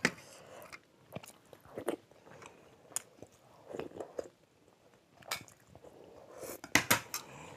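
Close-up eating sounds: spoons clicking against small ceramic bowls, sambar being sipped and slurped off spoons, and idli being chewed. The sounds come as scattered short clicks and smacks, with a louder cluster near the end.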